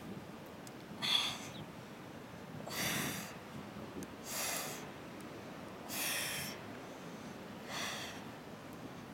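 A woman's breath pushed out through the mouth, once with each crunch: five short exhalations, one about every one and a half to two seconds.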